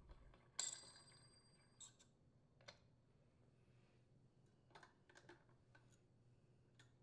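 Faint metal-on-metal clink with a brief ring, as the trimmer's steel clutch is set on its washer and threaded onto the engine shaft by hand, followed by a few soft clicks and taps of handling.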